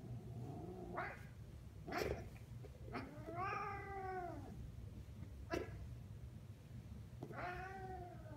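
An angry domestic cat guarding its toy ball against a reaching hand: a low wavering growl at the start, short sharp sounds around one and two seconds in, then long yowls that rise and fall in pitch, one in the middle and another starting near the end.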